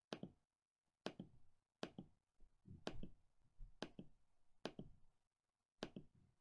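Computer mouse button clicking, seven faint sharp clicks roughly a second apart, each with a soft low knock after it.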